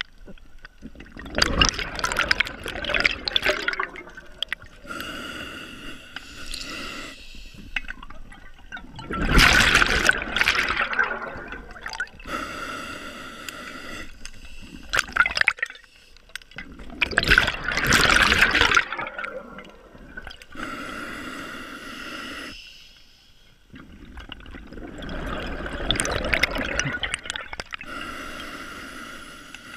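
Scuba regulator breathing underwater: a hissing inhale through the demand valve, then a loud burst of exhaled bubbles, about one breath every eight seconds, four breaths in all.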